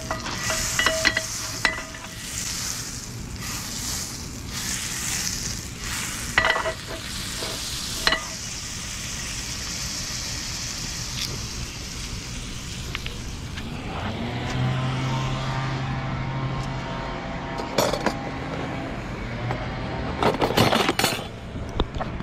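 Butter sizzling and foaming as it melts in a hot cast iron skillet on a portable butane stove: a steady hiss, with a few sharp clinks and knocks now and then.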